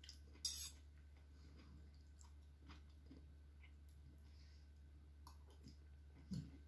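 Near silence broken by a metal spoon and fork clicking against a ceramic dish, the sharpest clink about half a second in, with faint clicks after it. Just after six seconds comes a short, duller mouth sound as a spoonful is eaten.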